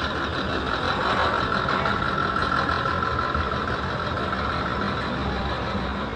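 Steady traffic and engine noise, with a steady high-pitched whine that is strongest in the middle and fades near the end.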